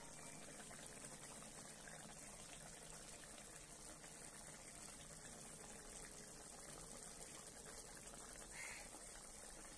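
Faint, steady bubbling of a bhetki fish curry in a kadai over a gas burner, its freshly added water coming up to a simmer.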